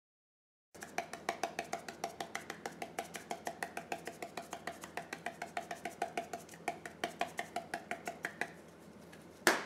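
Spice shaker of poultry seasoning shaken in quick, even strokes, about five a second, each a short rattle. The shaking stops shortly before one sharp click near the end.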